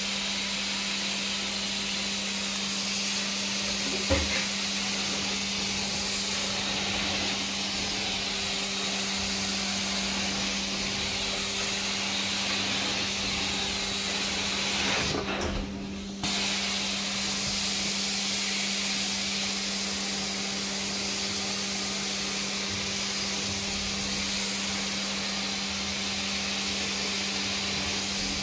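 Carpet extraction wand spraying cleaning solution and sucking it back up from a heavily soiled carpet: a steady hiss over a constant low hum. The hiss drops out briefly about halfway through, with a single knock earlier on.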